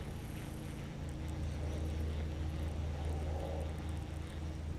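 Baitcasting reel being cranked steadily to retrieve a crankbait, heard as a low steady hum that grows louder about a second in.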